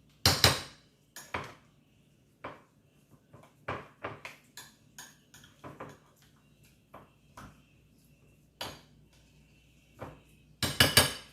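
A spoon clinking and knocking irregularly against a bowl while ground ogbono and palm oil are stirred and handled, with the loudest knocks just after the start and a cluster near the end.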